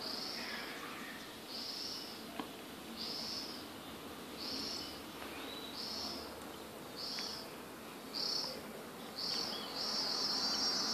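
A cicada calling: short high buzzy notes about one a second, coming gradually faster, that run together into one continuous buzz near the end and then cut off.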